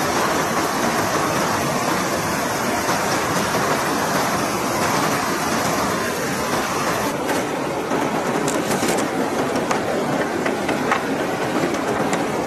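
Shallow river rushing steadily over rocks. From about halfway in, scattered light knocks and clatters of bamboo poles and sticks being handled.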